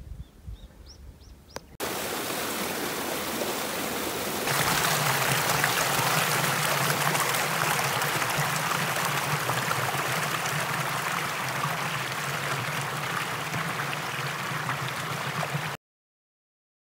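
Shallow water rushing steadily over stones in a small irrigation channel, coming in suddenly about two seconds in and growing louder a few seconds later, then cutting off abruptly near the end. A few faint chirps come before it.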